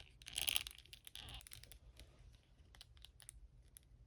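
An action figure being handled: light rustling twice in the first second and a half, then scattered small clicks as the plastic joints and cape are moved.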